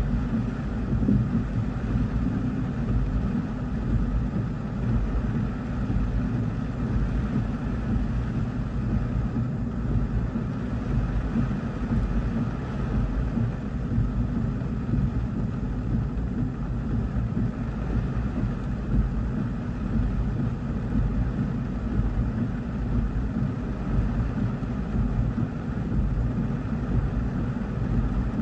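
Heavy rain falling on a car's roof and windshield, heard from inside the cabin: a steady, dense rushing noise, heaviest in the low end.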